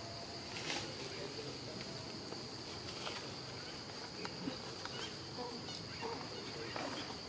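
Steady high-pitched drone of insects, with faint scattered clicks and rustles.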